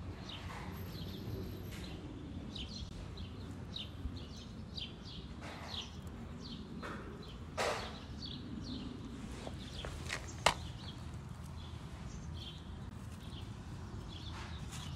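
Small birds chirping outdoors: many short, falling chirps, about one or two a second, over a steady low background rumble. A brief rustling burst comes about halfway through, and a single sharp click a little later.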